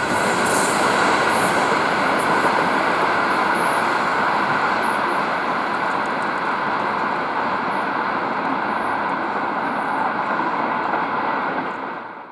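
Freight train of open gondola wagons rolling past on the rails: a steady rumble of wheels on track, with brief high-pitched wheel squeals repeating through the first part. The sound fades out at the very end.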